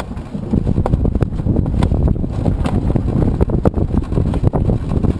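An ASW-19B glider being pushed by hand along asphalt: a steady rumble from its wheel rolling, with frequent sharp knocks and rattles from the airframe.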